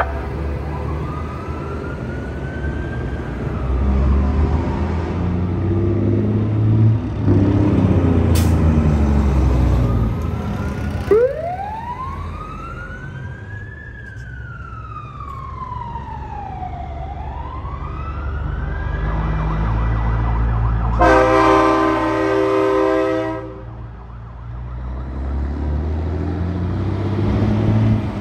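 Siren wailing with slow rises and falls over the low rumble of truck engines, and an air horn blast of about two seconds near the end.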